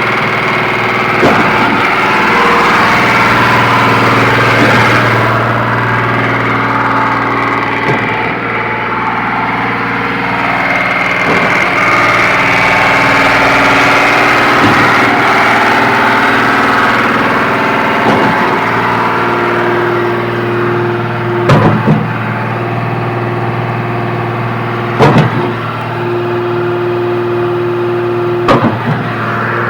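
SANY concrete pump running: a steady diesel engine hum, with a sharp knock about every three and a half seconds as the pump changes stroke. The last three knocks are the loudest.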